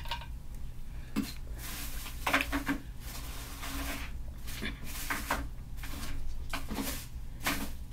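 Scattered clicks, knocks and rustling of objects being handled and moved about, over a steady low hum.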